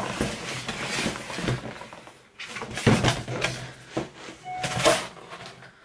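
Cardboard boxes being handled and opened: scraping and rustling of cardboard with a few sharp knocks, the loudest about three and five seconds in.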